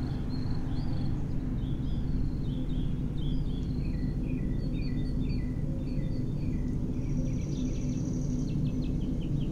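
Outdoor ambience: a steady low hum with birds chirping over it. Near the end one bird chirps quickly, about four times a second.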